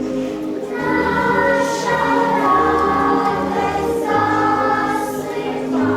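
Choral music: voices singing long held notes over a low accompaniment, the chord changing about every second.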